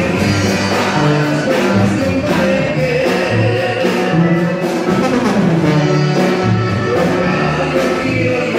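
Live band music with a steady beat and a moving bass line.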